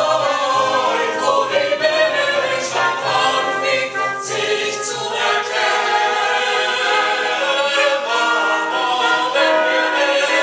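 A small choir singing in layered, held notes.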